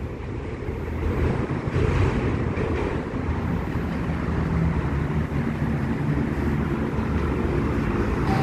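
Steady low rumble of vehicle engines and traffic, with wind noise on the microphone.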